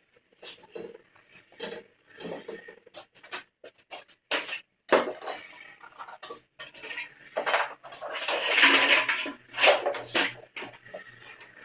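Irregular metallic clinking, clattering and knocks, like metal tools and pipe fittings being handled and set down. Denser and loudest about eight to ten seconds in.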